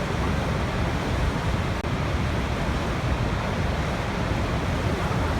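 Waterfall: a steady, even rush of falling water, heaviest in the low end, which drops out for an instant about two seconds in.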